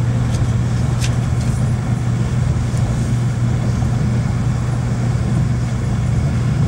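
Steady low rumble and hum of a Shinkansen Nozomi bullet train running along, heard from inside the passenger car, with a faint click about a second in and another near three seconds.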